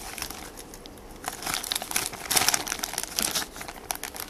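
Clear plastic bag crinkling and rustling as it is handled, in irregular crackles that are busiest through the middle.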